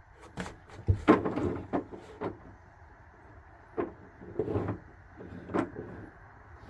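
A large dog snuffling and nuzzling against a cat's fur: a string of short, irregular sniffs and rubbing sounds, loudest about a second in.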